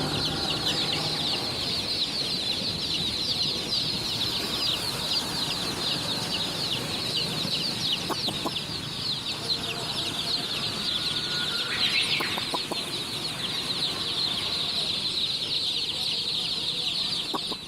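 A large flock of chicks peeping all together: a dense, unbroken chorus of short, high, falling cheeps. A few lower, rapid clucking sounds come through about halfway and again near the end.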